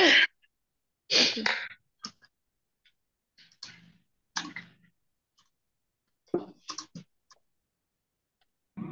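Scattered short bursts of noise and clicks coming through video-call microphones, the loudest at the very start and about a second in, with dead silence between them.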